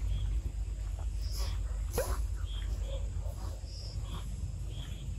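Outdoor ambience of short, high chirps scattered throughout, typical of insects, over a low steady rumble, with one brief animal call falling in pitch about two seconds in.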